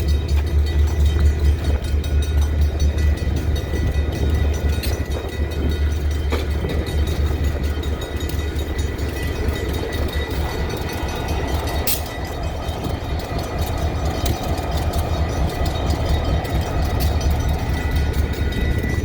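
EMD SD40 diesel locomotive standing and idling, a steady low rumble that is strongest in the first half and fainter later, with scattered clicks over it.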